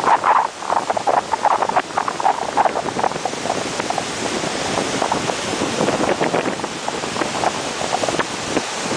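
Wind buffeting the microphone over the steady rush of surf breaking on the shore, gustier in the first few seconds and steadier after.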